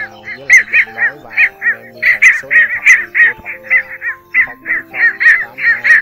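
Rapid, repeated short calls of bitterns from a lure recording of cinnamon and black bitterns, a few calls a second, over background music with slow sustained notes.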